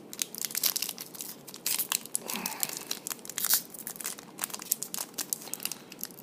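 Plastic wrappers of trading-card packs crinkling and tearing as packs are opened and the cards handled, an irregular run of crackles and rustles.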